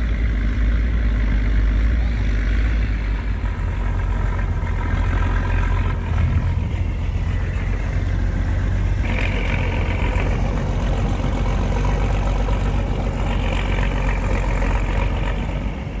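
Engines of several 4x4 off-road vehicles idling and running close by, a steady low hum; about nine seconds in a higher, rougher engine sound joins it.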